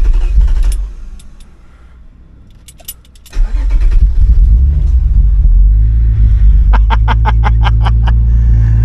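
Mazda Eunos (MX-3) 1.8-litre V6 being cranked after more than two years unused: a first burst of cranking stops, then about three seconds in the engine cranks again, catches and settles into a steady low idle. A quick run of rapid ticks comes through about seven seconds in.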